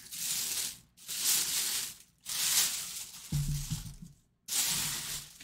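Clear plastic bag around a full-size football helmet crinkling as the bagged helmet is handled and turned, in four bursts of about a second each with short breaks between.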